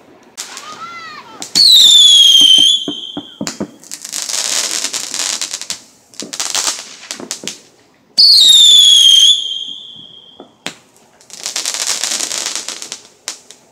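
Consumer fireworks going off: two loud, shrill whistles, each lasting about a second and falling slightly in pitch, about a second and a half in and again about eight seconds in. Between them come stretches of dense crackling and sharp bangs.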